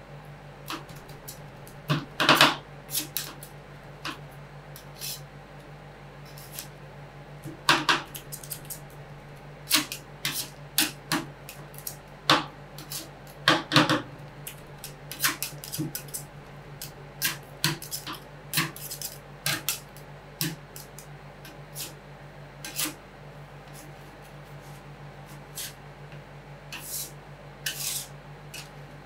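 Metal spatulas striking and scraping a steel ice cream cold plate in irregular clusters of sharp clicks and knocks as ingredients are chopped into the ice cream mix, with a steady low hum underneath.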